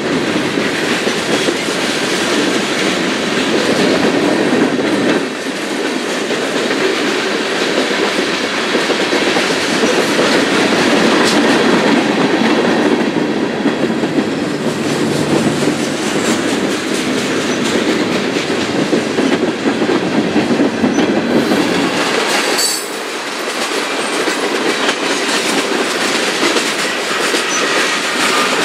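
A freight train of hopper, tank and box cars rolling past close by, with a steady rolling noise of the steel wheels on the rails. About two-thirds of the way through the sound dips briefly and the low rumble thins.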